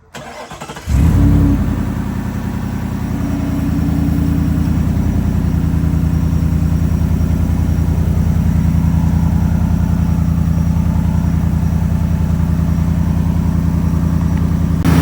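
Ford F-150's 5.0 Coyote V8 started up: the starter cranks for about a second, the engine catches with a brief rev flare, then settles into a steady idle.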